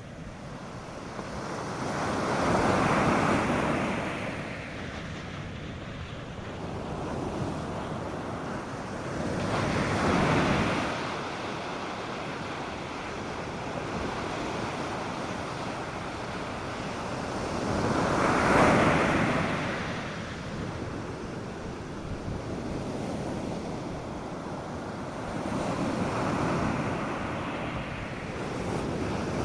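North Sea surf breaking on a sandy beach: four waves surge in and wash out about every eight seconds, the loudest about two-thirds of the way through, over a steady hiss of water. A light wind rumbles on the microphone.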